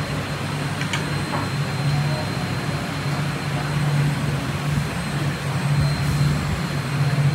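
Steady roar of hawker-stall kitchen equipment, with a low hum that comes and goes and a faint high whine.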